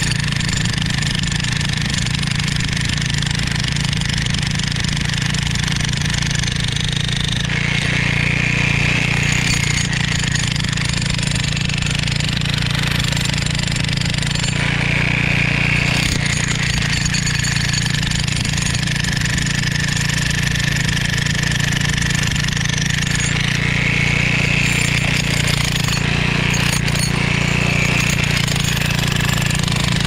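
Toolman LT5105 electric jackhammer (14 amp, 2200 watt demolition hammer) chiselling into old rebar-reinforced concrete, hammering continuously without a break.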